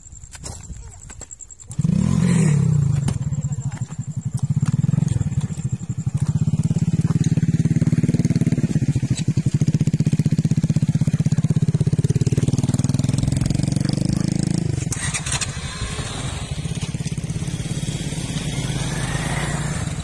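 Motorcycle engine starting about two seconds in, revving up and then running steadily as it rides, dropping back to a lower, even run about three-quarters of the way through.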